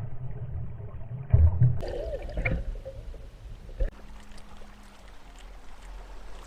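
Low rumble of wind and handling noise on a fishing boat, with a loud thump about a second and a half in and a sharp knock near the middle, then a quieter steady rumble.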